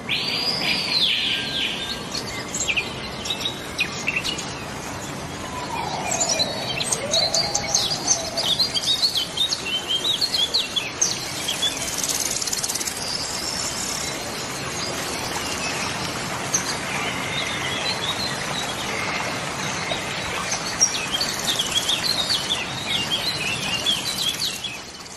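A flock of gulls calling over and over in short, high, chattering cries around a boat, over a steady rushing background. The calls bunch up about a third of the way in and again near the end.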